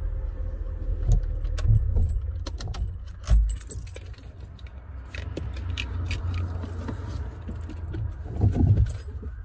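Toyota Carina's engine rumbling low in the cabin, with a run of light clicks and metallic jingling as the gear lever is worked. One heavy thump comes about three seconds in.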